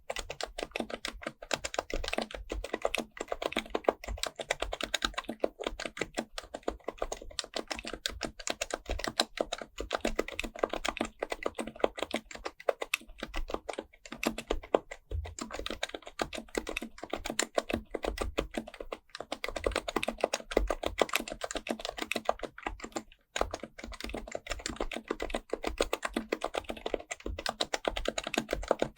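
HHKB Professional Type-S keyboard with Topre capacitive switches being typed on fast and continuously, a steady stream of soft keystrokes with brief pauses about halfway through and again a few seconds later.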